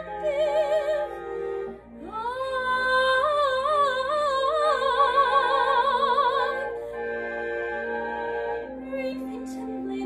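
A woman singing with wide vibrato over an instrumental accompaniment. After a short phrase she swoops up about two seconds in to a long held high note, which cuts off before the seven-second mark. The accompaniment then plays on alone with sustained notes.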